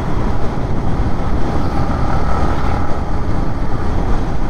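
Wind buffeting a motorcyclist's camera microphone at riding speed, with the motorcycle's engine running underneath.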